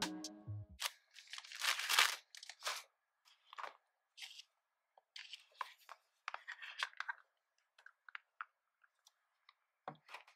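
Hands handling hard plastic phone cases: a phone taken out of one case and pressed into another, giving scattered clicks, taps and crinkling rustles, with a longer rustle about two seconds in. A snatch of background music cuts off in the first second.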